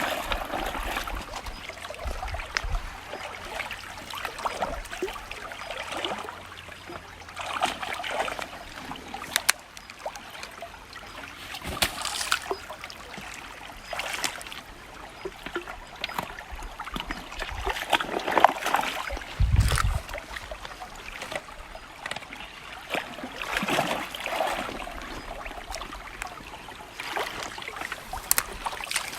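Shallow river water trickling, with splashes and sloshing that swell up every couple of seconds.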